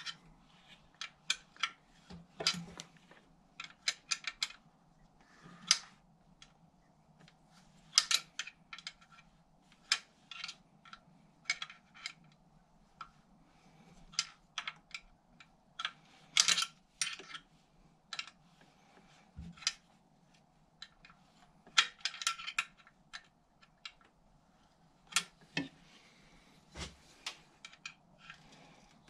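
Irregular light metallic clicks and clinks of tools on the clutch arm's adjusting nut and locknut at a classic Mini's clutch housing, as the nuts are turned and locked up.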